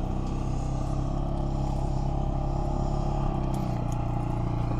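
Vehicle engine idling steadily, a low even hum, most likely the motorhome's engine as the campsite is reached.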